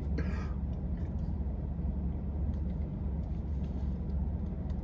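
Low steady rumble of a car idling, heard from inside the cabin, with a few faint small clicks.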